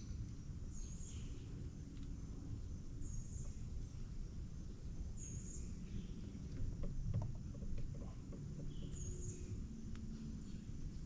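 Four short, high bird chirps a couple of seconds apart over a steady low rumble, with a few light knocks about two-thirds of the way in.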